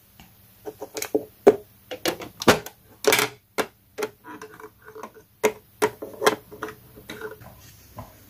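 Hard plastic toy figures tapped and set down on a plastic toy-stable floor by hand: an irregular run of light clicks and knocks, with one louder knock about three seconds in.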